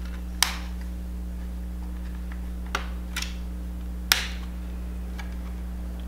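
Plastic snap clips of an Acer Predator Helios 300 laptop's bottom cover cracking loose as a plastic pry tool is worked along the seam: five or so sharp clicks, with a quick pair near three seconds in, the loudest about half a second and about four seconds in, over a steady low hum.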